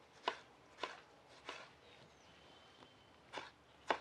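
Kitchen knife slicing tomatoes on a wooden cutting board: five sharp taps as the blade goes through and strikes the board, with a pause of under two seconds between the third and fourth.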